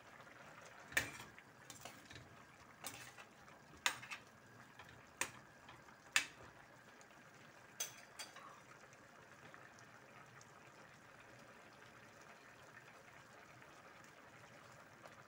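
Squash simmering in coconut milk in a stainless steel pan, a faint steady bubbling. About eight sharp clicks or pops come in the first eight seconds, then only the bubbling.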